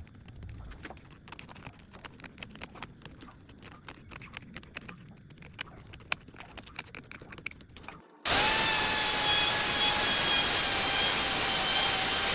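Light scattered clicking and tapping, then about eight seconds in an angle grinder switches on suddenly and runs with a loud, steady high whine.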